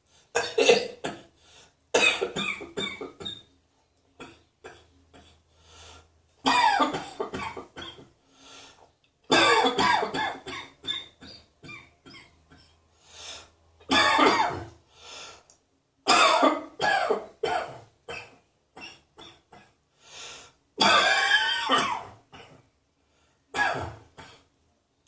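A person coughing in about eight separate fits, each a quick run of coughs, with short pauses between them.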